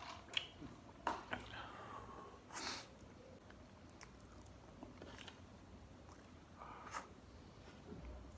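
A person chewing and biting food close to the microphone, with a few sharp crunchy clicks and a short breathy rush about two and a half seconds in.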